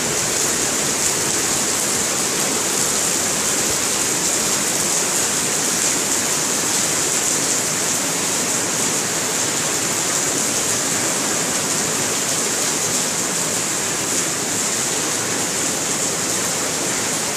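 Heavy rain pouring steadily onto a paved courtyard and its awnings, an even, unbroken hiss.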